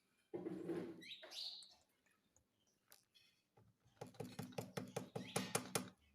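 Indian ringneck parrot vocalising: a short call followed by a rising squawk, then from about four seconds in a rapid run of clicking chatter.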